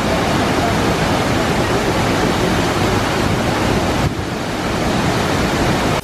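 Large waterfall heard close up at the base of the falls: a loud, steady rush of heavy falling water crashing into its pool.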